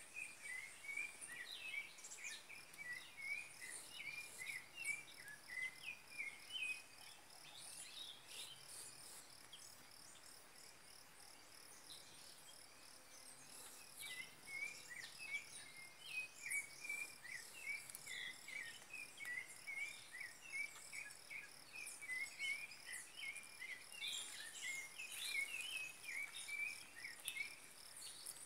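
Insects trilling steadily at a high pitch, with spells of rapid, short chirping calls over the top: one in the first several seconds and another from about halfway to near the end.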